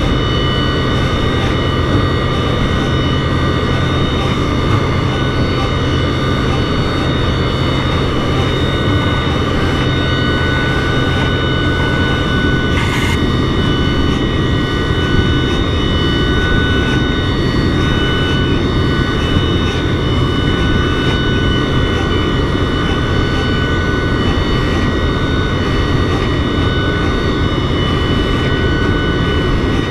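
DN Solutions DVF5000 five-axis CNC machining center reaming holes in 4140 alloy steel with a six-tooth Kennametal KenReam carbide reamer at 184 inches a minute, under flood coolant. It makes a steady whine of several held tones over a hiss, with one brief click about halfway through.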